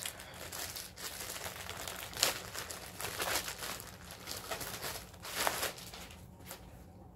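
Clear plastic bag crinkling and rustling in irregular crackles as hands work it open and pull a folded T-shirt out, with louder crackles about two, three and five and a half seconds in.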